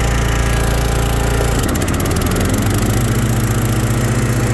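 The 18-horsepower Kohler engine of a Hustler FasTrak zero-turn mower runs steadily. About a second and a half in, the mower blades are engaged: the engine's note changes suddenly and briefly stutters, then settles into a steady run under the load of the spinning blades.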